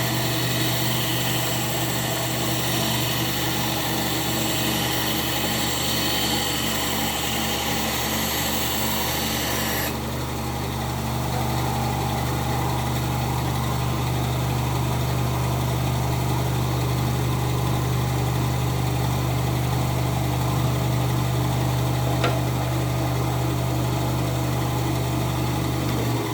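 Electric power tool motor running with a steady hum. A loud high hiss over it stops suddenly about ten seconds in, and the motor keeps running on its own.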